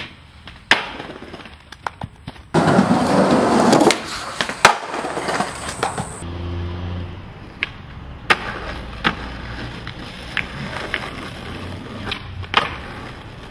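Skateboard wheels rolling on rough pavement, with a series of sharp wooden clacks from tail pops, landings and the board striking the ground. A louder, rougher rolling stretch comes a few seconds in.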